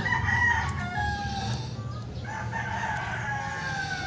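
Rooster crowing: two long crows one after the other, the second trailing off downward at the end.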